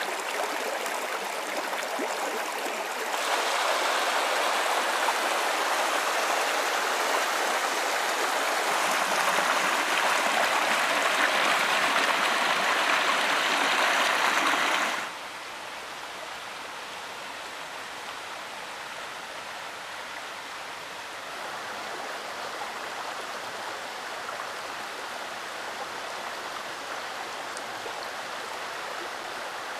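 Shallow rocky creek running over stones, a steady rush of water that gets louder about three seconds in and drops to a quieter flow about fifteen seconds in.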